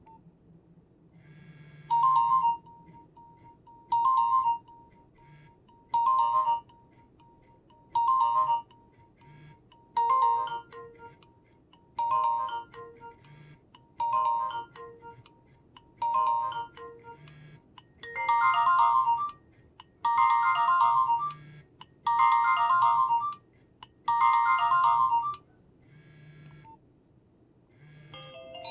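Nokia 1112 mobile phone ringtone playing from the phone's speaker: a short electronic tone phrase repeats about every two seconds with gaps between. From about eighteen seconds in, the phrases become longer and fuller.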